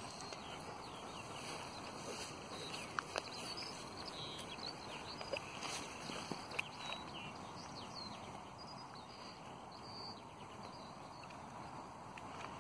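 German Shepherd tearing and chewing grass at close range, with scattered crisp clicks and crunches from its mouth and the stalks.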